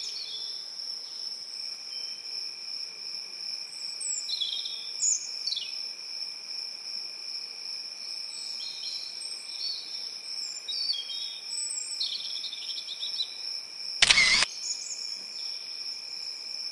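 Insects trilling steadily at a high pitch, with birds chirping now and then. About fourteen seconds in, a short loud camera-shutter click.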